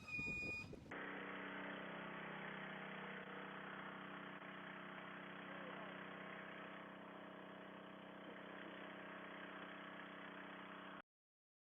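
An engine running steadily at an even idle, heard muffled, then cutting off abruptly near the end.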